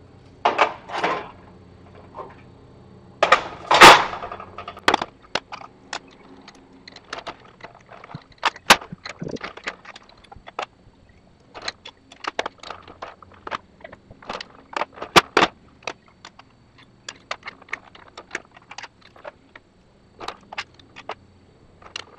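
Steel skate parts and ball bearings clinking and knocking against each other and the steel bench top as they are fitted together: many sharp, irregular clicks in quick succession, with the loudest cluster of knocks about four seconds in.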